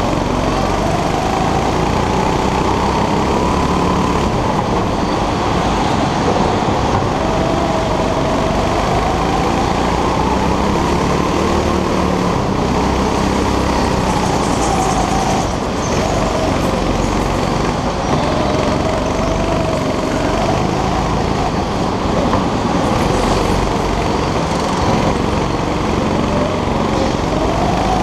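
Rental go-kart engine running hard, its pitch climbing and falling every few seconds as the kart accelerates out of corners and slows for the next.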